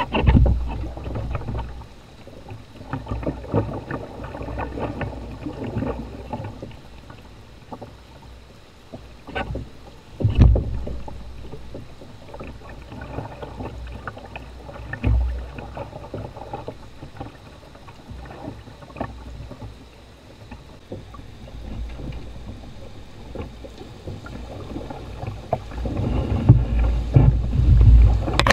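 Shallow rocky river riffle rushing past a canoe being poled, with frequent short clacks of the pole on the stony bottom. Dull thumps come at the start, about ten and fifteen seconds in, and several close together near the end.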